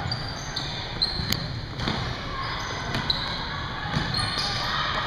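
Basketball bouncing on a hardwood gym floor, a few separate thumps, with short high sneaker squeaks from players moving on the court, echoing in the gym.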